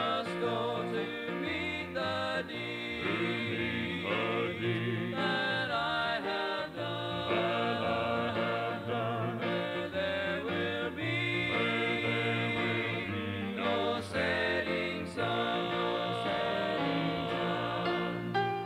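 Gospel vocal quartet singing a hymn in harmony, played back from a 1983 cassette recording.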